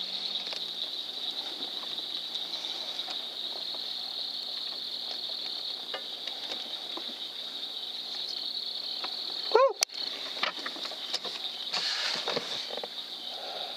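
Steady high-pitched chirring of insects such as crickets. About ten seconds in, a single sudden loud bang cuts through.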